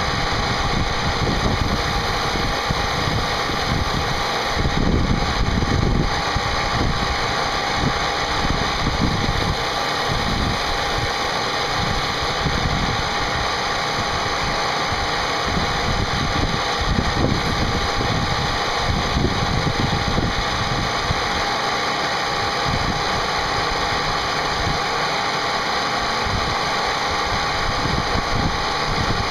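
CNC machine running a cutting job: a steady spindle whine over an uneven low rumble of the cutter working the part.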